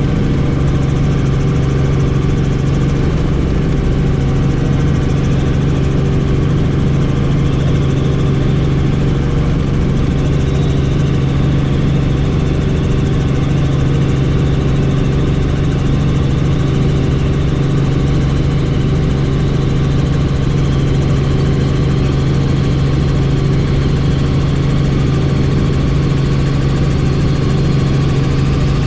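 Helicopter in flight with the doors off: the steady drone of turbine and rotors with a strong low hum, under rushing air.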